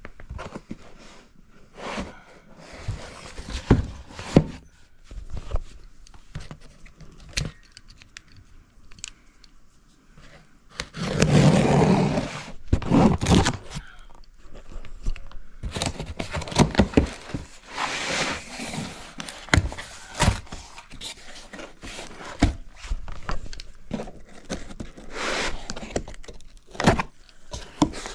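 Cardboard shipping box being handled and opened: scraping, tearing and knocking of cardboard in uneven bursts, with a louder stretch of scraping rustle about midway.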